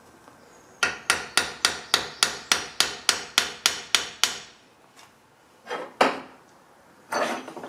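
Small hammer tapping rapidly on the end of a 1/8-inch rivet to spread it into a dome head, about thirteen quick even blows at roughly three and a half a second. A pause follows, then two heavier knocks and a short scrape near the end.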